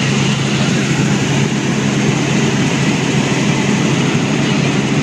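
Helicopter running steadily in flight: a loud, even engine and rotor drone with a strong low hum.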